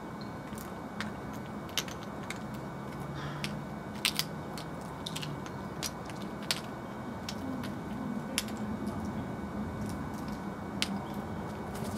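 Eurasian jay pecking at peanuts on paving: irregular sharp taps and cracks of its beak against nuts and stone, about a dozen, over steady background noise.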